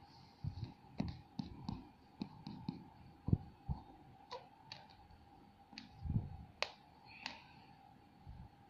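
Irregular light taps and clicks of a fingertip on an iPad's glass touchscreen while scrolling, with some duller knocks among them, over a faint steady hum.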